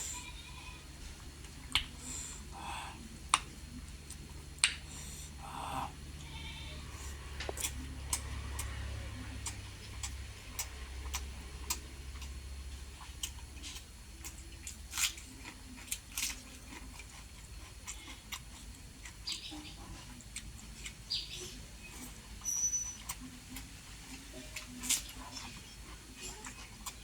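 Close-up eating sounds from a person eating rice with spicy egg curry: chewing, lip smacks and many short sharp clicks at irregular intervals. A low steady hum runs underneath for about the first dozen seconds, then fades.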